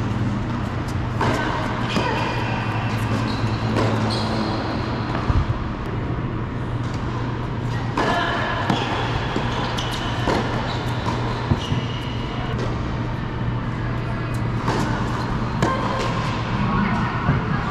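Tennis ball being struck by rackets and bouncing on an indoor hard court: a series of sharp hits that echo in the large hall, with short high squeaks between them over a steady low hum.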